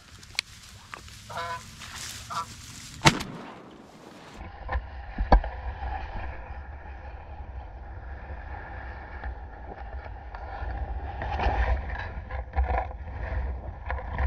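Canada goose honking as it comes in to the decoys, then a single shotgun shot about three seconds in. After that, wind rumbles on the microphone, with another sharp shot-like crack and a few faint honks.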